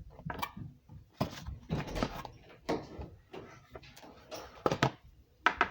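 Irregular knocks and clatters of things being handled and set down, a few sharp ones close together near the end.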